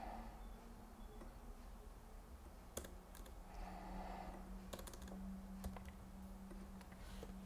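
Computer keyboard typing: a handful of faint, scattered key clicks, mostly in the second half, over a low steady hum.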